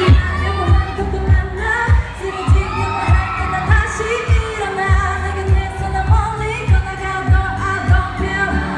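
A woman sings a K-pop song into a handheld microphone over an amplified backing track. The track has a steady kick-drum beat, a little under two beats a second.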